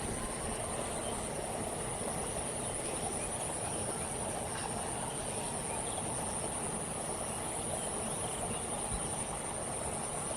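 Insects, crickets or the like, trilling in one steady high-pitched drone without a break, over a continuous low background hum.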